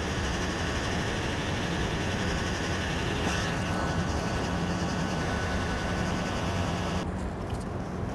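Electric heat gun running with a steady blower rush while hot air is played over a vinyl seat cover to shrink out wrinkles. It shuts off near the end.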